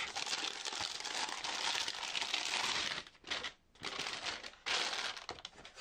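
Thin plastic bag crinkling and rustling as a small power supply is slid out of it: a continuous rustle for about three seconds, then two shorter bursts of crinkling.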